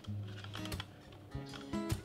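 Background music under a few short, scratchy strokes of cheese being grated by hand over a baking dish.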